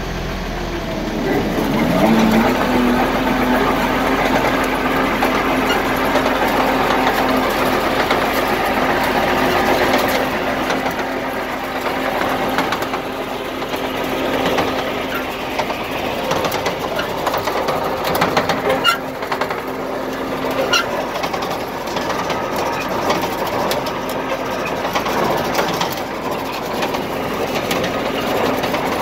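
Arts-Way 425 grinder-mixer running off a tractor's PTO, a steady mechanical rattle with a tone that rises in pitch as it comes up to speed about two seconds in, then holds steady.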